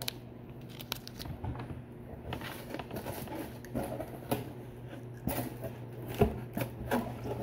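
Crinkling of plastic candy wrappers and handling of a cardboard snack box: a scatter of small crackles and taps, with a sharp knock about six seconds in. A steady low hum runs underneath.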